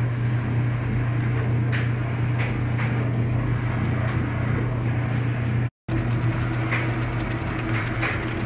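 Whirlpool top-loading washing machine running, its agitator turning the load, with a steady low motor hum. The sound breaks off briefly about six seconds in, and after that more hiss comes in over the hum.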